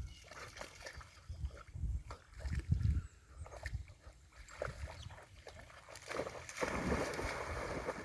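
A dog swimming and moving in water: irregular low thumps and sloshing, then a longer burst of splashing noise about six and a half seconds in.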